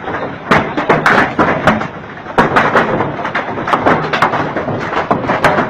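A violent storm: a loud, continuous rush of noise with many sharp knocks and thuds striking at irregular moments, as of debris or hail hitting hard surfaces.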